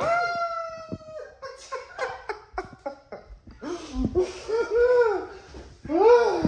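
Wordless vocal sounds from a person: one long held cry in the first second, short bursts, then rising-and-falling wails near the end, like laughter.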